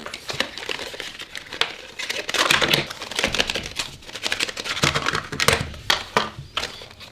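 Plastic packaging of speed cubes crinkling and rustling as it is opened by hand, with irregular sharp clicks.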